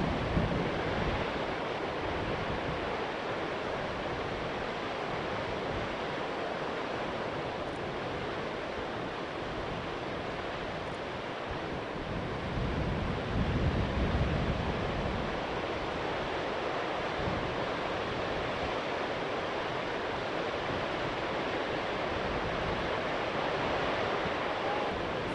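Floodwater pouring through an open dam spillway and churning in the river below: a steady rushing roar. Wind buffets the microphone briefly about thirteen seconds in.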